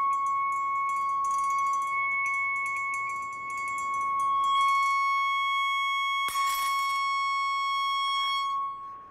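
A high-power speaker driver blasts a single steady high tone from a signal generator, set at a wine glass's resonant frequency; about four and a half seconds in it grows harsher. A little after six seconds the glass shatters with a sharp crack and a brief spray of breaking glass, while the tone keeps going until it cuts off near the end.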